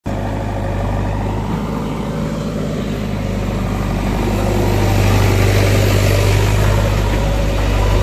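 JCB 3DX backhoe loader's diesel engine running steadily with a deep hum, growing a little louder about halfway through.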